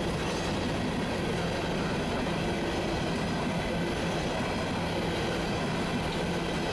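Freight train of open-top coal hopper cars rolling past: a steady rolling noise of steel wheels on rail.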